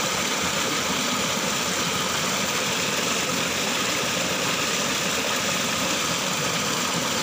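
Steady, even rushing noise with no distinct events or pitch.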